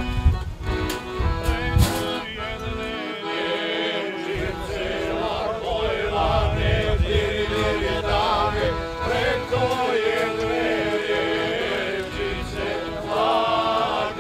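Music: several men singing together, with instruments accompanying.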